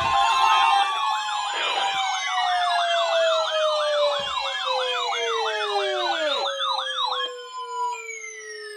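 Several electronic sirens sound at once. A fast yelp warbles about three to four times a second, and long wails glide downward. A steady high tone cuts off under a second in, and the yelp stops about seven seconds in, leaving only the falling wails.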